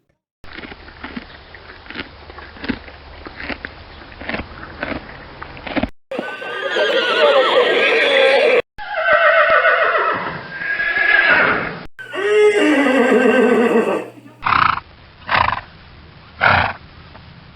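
A horse: hooves clopping at first, then three long whinnies, each with a wavering, gliding pitch, followed by several short, sharp sounds.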